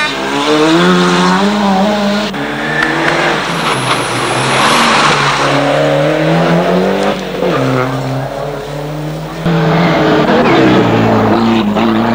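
Ford Sierra Cosworth rally car engines at full attack through tight bends, the pitch climbing and dropping again and again as the drivers accelerate, lift and change gear. The sound changes abruptly twice as the footage cuts from one car to the next.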